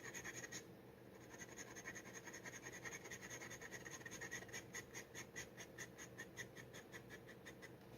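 Steel G nib dip pen scratching across paper in quick short strokes, about five a second, with a brief pause about half a second in.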